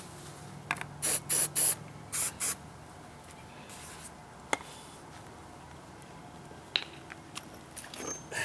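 Aerosol can of ant spray hissing in a string of short squirts over the first two and a half seconds. A sharp click follows about halfway through, and light knocks near the end as a concrete paver is handled.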